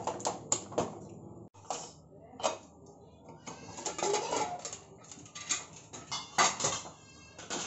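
Stainless-steel pressure cooker lid and handle being handled against the pot: a series of sharp metal knocks and clanks at irregular moments, with a quick run of rapid ticks near the end.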